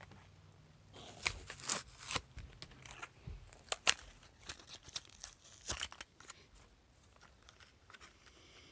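A Hot Wheels car package being torn open by hand, the card and plastic blister ripping and crinkling in an irregular run of sharp crackles that dies down after about six seconds.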